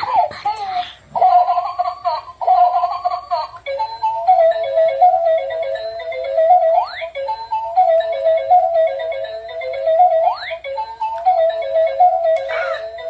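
Crawling baby doll toy playing its built-in electronic melody from a small speaker, a simple repeating tune. A quick rising whistle-like glide sounds twice, about every three and a half seconds.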